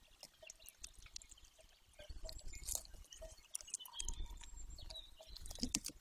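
Golden eaglet tearing at a freshly caught bird with its beak: wet tearing, crackles and small clicks. Two stretches of low rumble come about two and four seconds in.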